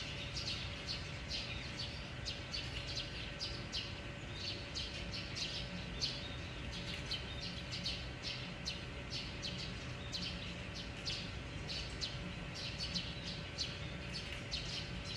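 Small birds chirping continuously, several short, high chirps a second, over a steady low hum with a faint held tone.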